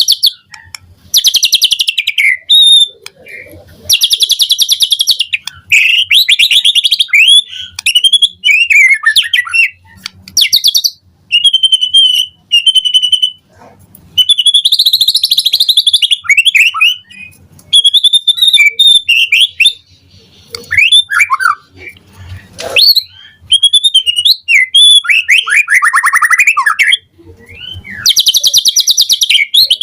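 White-rumped shama (murai batu) singing a varied, full song in phrases about one to three seconds long, with short gaps between them. The phrases mix fast rattling trills, clear whistled notes and rapid falling slurs.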